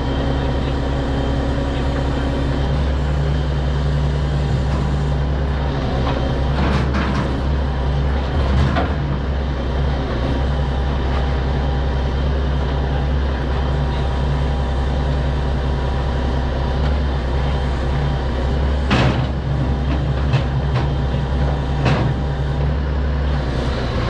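Grapple log truck's engine running steadily to drive its hydraulic knuckle-boom loader as the boom sets a log on the bed and folds down to stow, with a few sharp knocks along the way.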